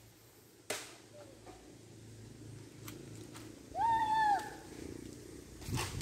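A cat meows once, a single call that rises and then falls in pitch, about two-thirds of the way in. A couple of short knocks come near the start and near the end.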